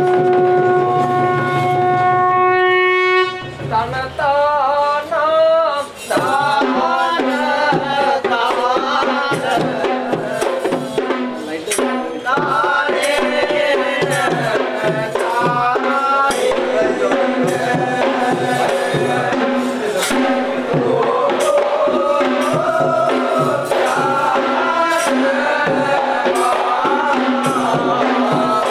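A single steady held note, horn-like with even overtones, for about three seconds, then singing or chanting over hand drums and tambourine.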